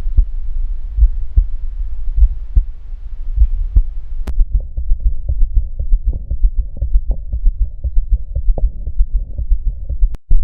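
Heart sounds recorded through a smartphone stethoscope, a steady series of low heartbeat thumps. About four seconds in, the recording switches to a different heart, with faster, closer-spaced beats.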